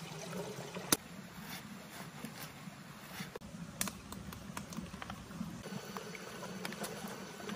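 Scattered light clicks and taps of hands and a machete working wild banana plant material, over steady low background noise that changes abruptly twice, as at cuts between shots.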